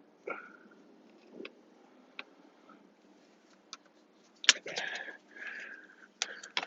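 Scattered light clicks, with a louder stretch of clicking, rattling and scraping about halfway through: plastic wiring-harness connectors and dash trim being handled and pulled.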